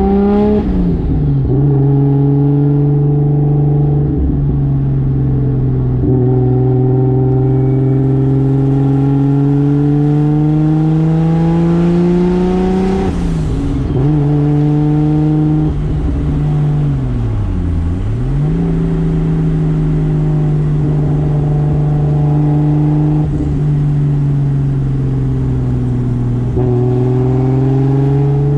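Toyota 2JZ single-turbo inline-six pulling through the gears of its R154 manual gearbox. The engine note climbs steadily in each gear and drops back at each gear change, about every few seconds. Once, near the middle, it sinks low and then climbs again.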